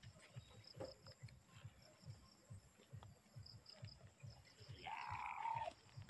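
A young goat bleats once near the end, a call of about a second, over faint insect chirping and soft low thumps.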